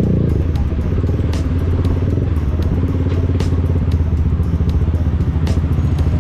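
Motorcycle engine close by, its pitch dropping as the bike slows about a third of a second in. It then runs low and steady at low speed.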